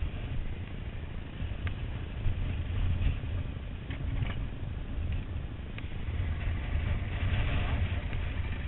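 Enduro motorcycle engines idling with a steady low rumble, with a few light knocks as a wooden field gate is handled.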